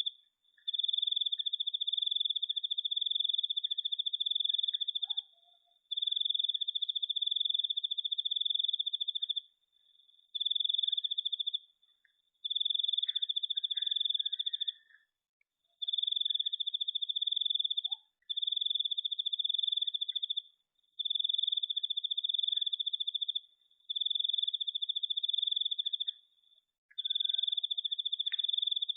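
A cricket trilling one high-pitched note in long, even bursts of one to four seconds, with short pauses between them.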